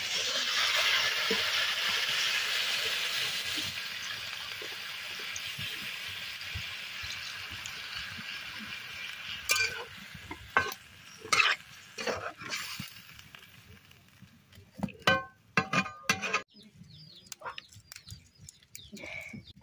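Water poured into a hot kadai of fried chicken and cauliflower hisses and sizzles loudly, the sizzle slowly dying away over several seconds. Then a metal spatula knocks and scrapes against the pan in a series of clinks as the curry is stirred.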